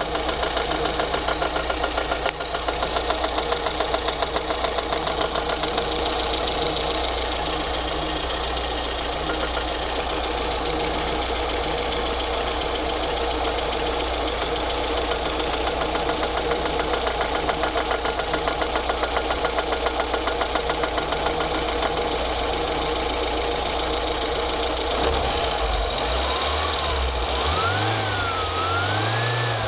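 VAZ-21093's four-cylinder petrol engine idling with a rapid, even rhythmic beating, then revved up and down several times near the end. The beating comes from the top of the engine and the fault is unidentified; from the cabin it resembles a failing clutch release bearing, but the clutch is new.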